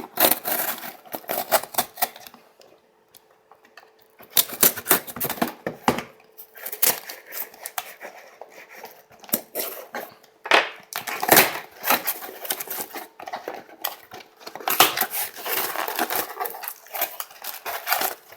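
Packaging being handled and opened by hand: bursts of crackling, rustling and sharp clicks, with a short pause about three seconds in.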